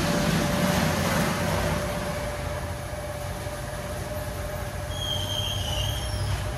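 Automatic car wash machinery running: a steady hiss, strongest in the first two seconds, over a low rumble and a steady whine, with short high squeaks about five seconds in.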